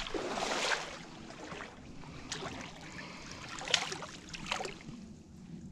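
Rustling and handling noise from hands working a fishing line and rigging a float, with a few sharp clicks.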